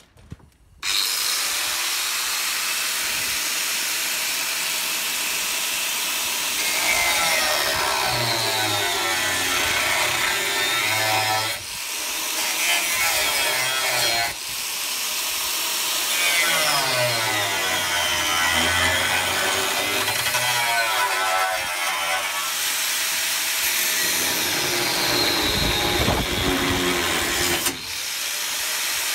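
Angle grinder cutting through the rusted steel rear chassis rail of a 1965 Series 2A Land Rover, starting about a second in; the motor's pitch rises and falls as the disc bites into the metal, with a few brief let-offs.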